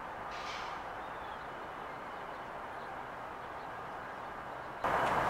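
Steady outdoor background noise with no distinct event, which suddenly grows louder and brighter near the end.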